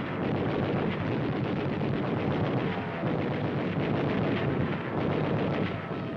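Newsreel battle sound effects: a continuous dense crackle and rumble of rapid gunfire and explosions.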